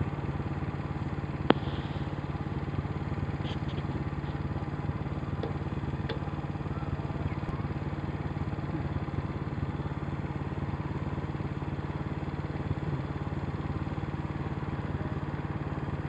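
A small engine idling with a constant low hum, and a single sharp click about a second and a half in.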